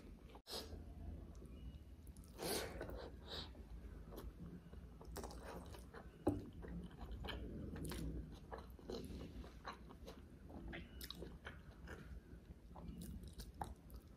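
Close-miked chewing and wet mouth sounds of a person eating butter chicken and rice by hand, with scattered irregular smacks and clicks.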